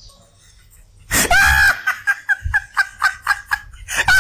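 High-pitched laughter: a shrill squeal about a second in, then a quick run of short giggles, about five a second.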